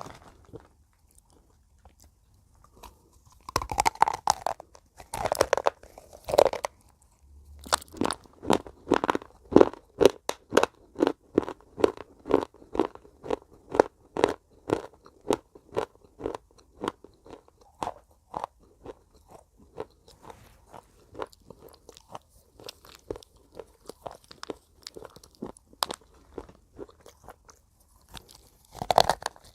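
A person biting into broken slate pencil pieces with a few loud crunches, then chewing them in a steady run of crisp crunches, about two a second, that grow fainter in the last part; another loud bite comes near the end.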